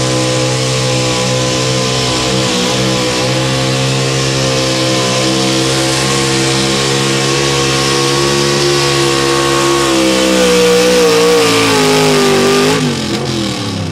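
Pro stock four-wheel-drive pulling truck's engine running hard at high, steady revs while pulling the sled. About ten seconds in, the revs sag and the pitch falls, and near the end the engine sound drops away sharply.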